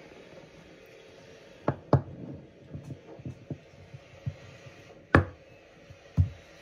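Handling noise as a hand grips and moves a 1:200 scale model airliner: four sharp knocks, two close together about two seconds in and two more near the end, with lighter clicks and taps between them.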